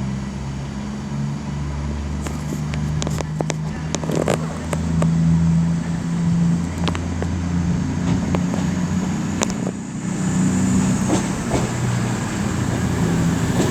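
Diesel multiple unit's underfloor engines running as a CrossCountry Voyager train pulls out of the station, with the engine note shifting in steps and scattered sharp clicks.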